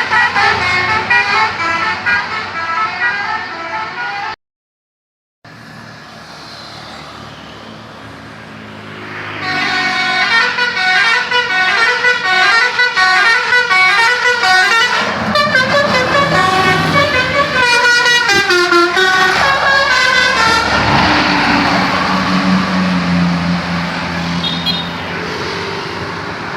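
Bus 'telolet basuri' horn, a multi-trumpet electric horn, playing quick melodic tunes in stretches over a bus engine running. It drops out briefly about four seconds in and is softer for a few seconds after. It plays loudly again until the last few seconds, which are mostly engine noise and a low hum.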